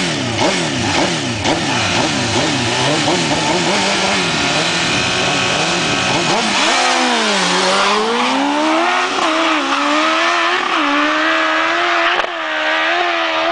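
Two sport bike engines revving in repeated quick throttle blips at a drag-race start line, then holding steady revs. About six and a half seconds in they launch, and the engine note climbs and steps down through several gear changes as the bikes accelerate away.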